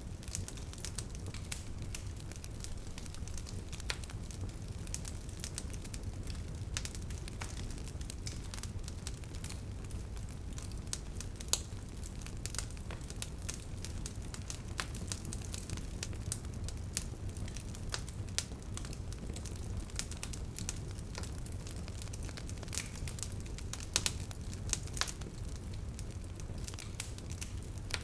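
Fire crackling, with frequent sharp pops over a steady low rumble.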